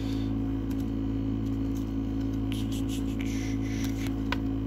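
Baseball trading cards being handled and slid against each other, with a few light scrapes in the middle and a soft click near the end, over a steady low hum.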